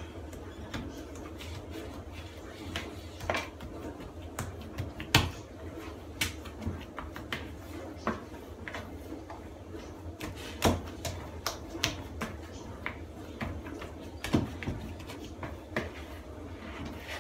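Soft yeast dough being kneaded by hand in a plastic bowl, with irregular sharp pops and squelchy snaps as air pockets are pressed out, a few much louder than the rest. The cook takes these noises as a sign the dough has come out just right.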